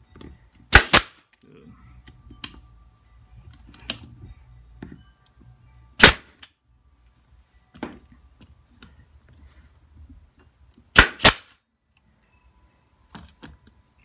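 Pneumatic nail gun firing nails into a plywood birdhouse box: sharp pops, a quick double about a second in, a single shot about six seconds in, and another quick double near eleven seconds.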